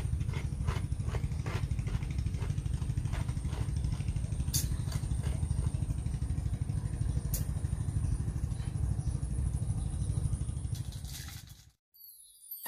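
A small engine running steadily, with a fast, even low flutter and a faint high whine over it, plus a couple of faint clicks. It cuts off suddenly near the end.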